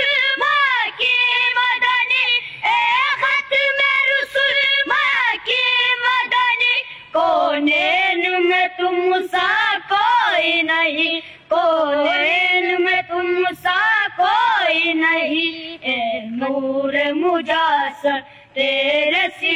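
Boys singing an Urdu naat in high voices, drawing out long wavering notes with no instruments heard. About seven seconds in, the melody drops to a lower pitch.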